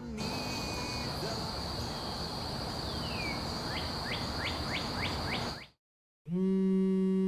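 City ambience: an even hiss with a steady high drone, and a bird giving a falling whistle and then a quick run of short falling chirps, about four a second. After a moment of silence, a mobile phone starts buzzing on vibrate in a long low pulse.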